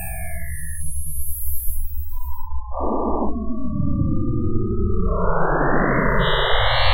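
Synthesized sci-fi warp-speed sound effect: electronic tones gliding up and down over a low rumble. About halfway through, a fresh set of crossing sweeps starts and spreads higher toward the end.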